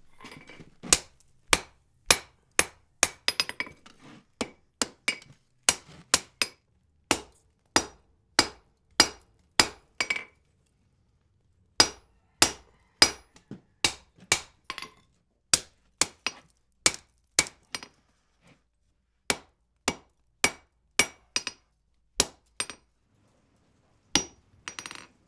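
Blacksmith's hammer striking the end of a hot wrought iron bar on the anvil: a steady run of ringing blows, about two a second, with two short pauses. The bar end is being forged at high heat, since the end of wrought iron is where cracks start.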